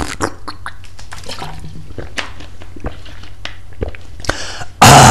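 Irregular clicks and taps over a steady low hum, then a short, loud burst of noise near the end.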